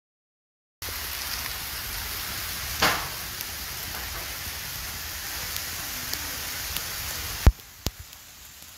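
Steady pattering hiss of volcanic ash and small lapilli stones falling onto the ground, like heavy rain, starting about a second in. Two sharp knocks come near the end, and after them the patter is quieter.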